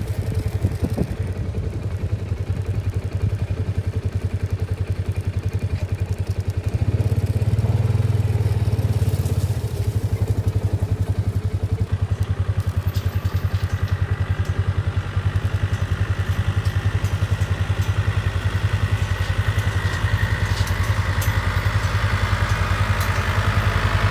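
A vehicle engine running steadily close by with a rapid, even firing beat, louder for a couple of seconds about seven seconds in.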